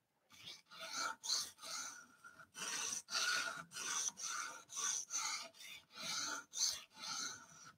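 A 220-grit stone on a guided rod sharpener rasping in quick back-and-forth strokes along the steel blade of a Spyderco Paramilitary 2, about two strokes a second, grinding the bevel and raising a burr.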